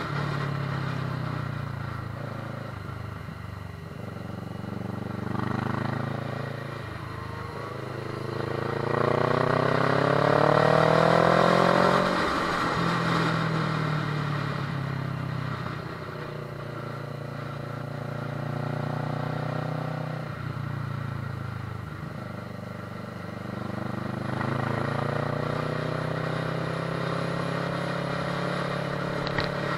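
Kawasaki ER-6n's parallel-twin engine under way, its revs repeatedly rising and dropping with throttle and gear changes. It is loudest about ten seconds in, as the revs climb steadily.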